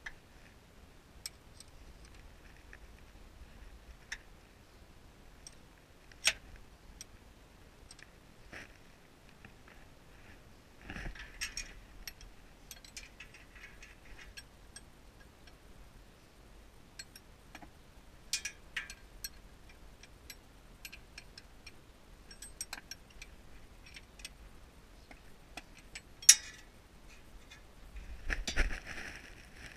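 Faint, scattered clicks and clinks of hand tools and metal parts being handled under a car, with short bursts of scraping and rustling near the middle and near the end. One sharp click late on is the loudest sound.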